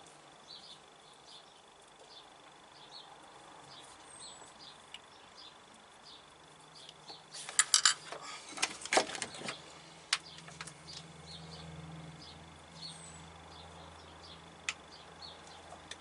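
Sharp clicks and clatter of small metal wiring parts and tools being handled, loudest in a burst about eight to nine seconds in. A faint short high chirp repeats about once a second underneath.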